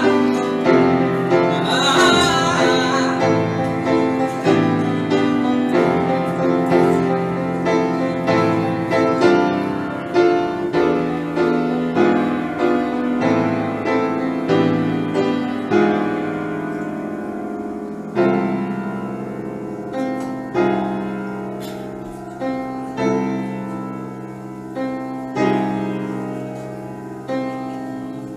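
Grand piano played live, chords and single notes struck and left to ring, growing quieter and sparser in the second half. A singing voice holds a wavering note over the piano in the first few seconds.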